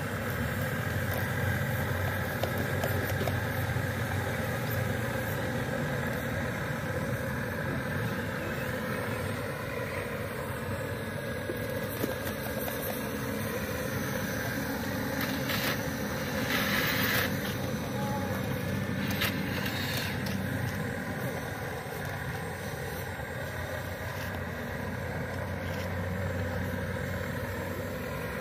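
Remote-control model Cat 336D excavator running steadily while it digs and loads soil, a continuous engine-like hum. Two short bursts of noise come a little past the middle.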